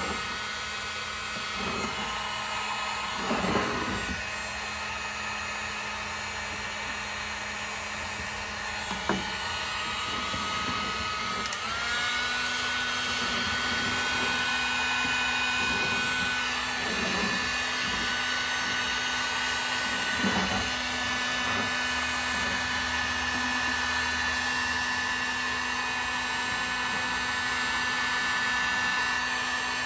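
Electric heat gun running steadily, its fan blowing with a whine while it melts and shrinks a plastic bottle onto a gas can's threads. The whine steps up in pitch about twelve seconds in, and a few light knocks come through.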